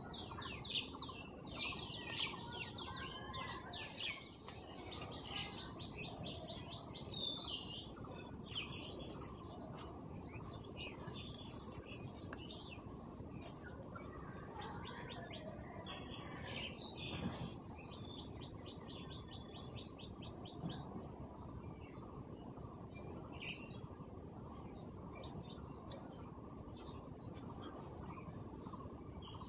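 Small birds chirping and twittering in quick runs of short notes, busiest at the start, over a steady low background rumble, with one sharp click about halfway through.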